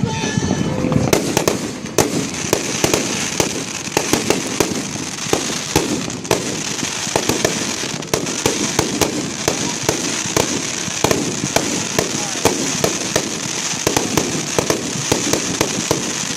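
Fireworks going off in many rapid, irregular bangs and pops, overlapping one another, with a steady high hiss setting in about two seconds in.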